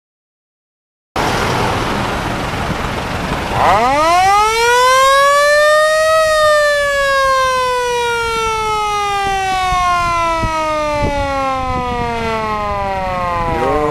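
Fender-mounted mechanical siren on a WWII-era Willys jeep, winding up steeply about four seconds in, then slowly winding down in pitch over some seven seconds, and starting to wind up again at the very end.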